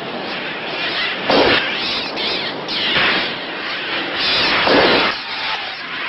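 Bird-attack sound effects: a dense rush of flapping and shrieking noise that swells and falls several times.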